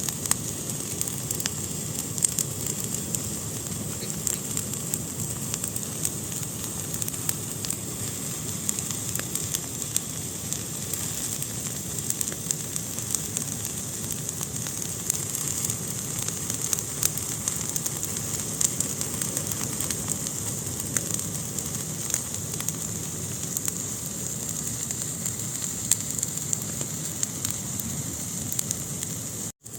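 Fire burning in a fireplace, crackling with frequent small sharp pops over a steady hiss. The sound cuts out for an instant near the end.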